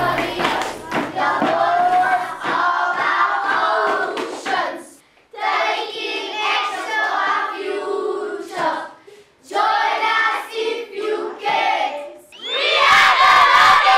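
A group of children chanting in unison with hand claps, breaking off briefly between phrases. Near the end they break into a loud group shout.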